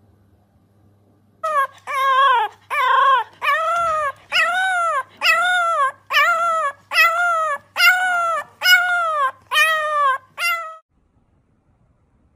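A French bulldog puppy howling in about a dozen short, high cries, each rising then falling in pitch, at a steady pace of a little more than one a second, stopping shortly before the end.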